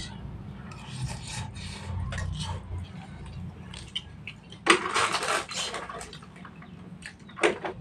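A man chewing a mouthful of mie tek-tek fried noodles, with small handling clicks. About five seconds in there is a louder scraping noise lasting about a second.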